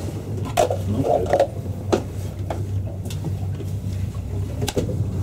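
Scattered light knocks and clinks of cups being handled, about six, most in the first half, over a steady low hum of the boat's engine.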